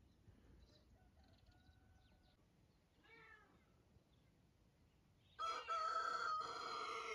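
A rooster crowing, one long loud call near the end with a brief break in the middle. A fainter short goat bleat with a falling pitch about three seconds in.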